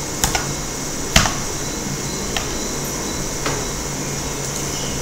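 About five sharp, isolated clicks from working a computer, the loudest a little over a second in, over a steady background hiss and low hum.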